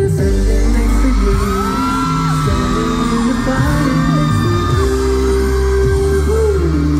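Loud pop music with a heavy bass playing through a hall's sound system, with fans screaming and whooping over it.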